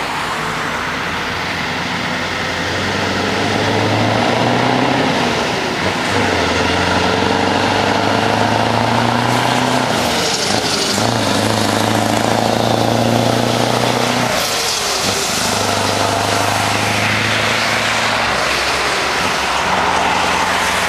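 Scania 164L 480's V8 diesel engine pulling as the truck drives past, its note breaking off briefly three times, about every four to five seconds, as at gear changes.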